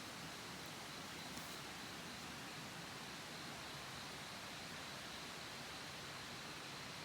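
Steady, even hiss with a faint high thin tone held throughout.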